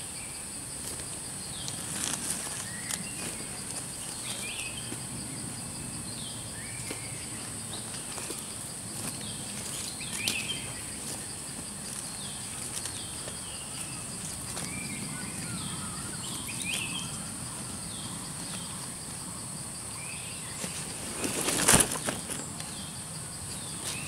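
Forest ambience: a steady high-pitched insect drone with many short, falling bird chirps repeated throughout. About 22 seconds in, one sharp, loud noise stands out above the rest.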